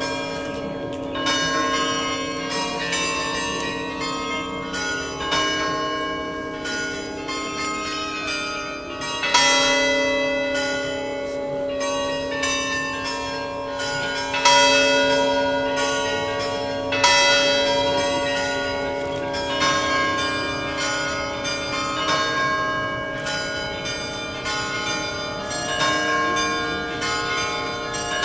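Bells of Lupton Hall's bell tower ringing: a run of struck bell notes at several pitches, each one ringing on and overlapping the next.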